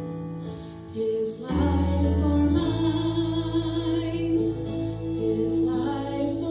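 A woman singing a slow Christian song solo, holding long notes with vibrato, over an instrumental backing with sustained bass notes; the music swells about a second and a half in.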